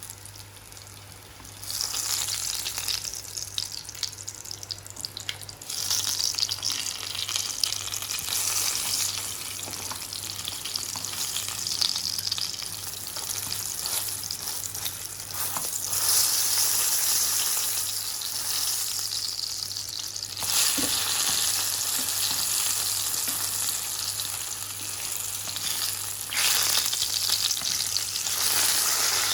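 Aubergine and tomato slices frying in hot oil in a pan: a steady sizzle that swells louder in several steps, over a faint steady low hum.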